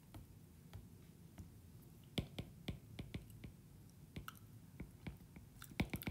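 Stylus tip tapping on a tablet's glass screen during handwriting: faint, irregular sharp ticks, a few a second, coming more often from about two seconds in and bunching near the end.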